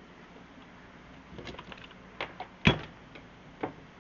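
Scattered clicks and knocks of staple guns being handled and set down while changing from one stapler to the next, with one sharp thump a little past the middle as the loudest.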